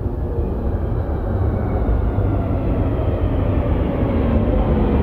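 Bombardier/CAF NM-02 rubber-tyred metro train pulling into the station: a deep rumble growing louder as it nears, with a whine falling in pitch as it slows.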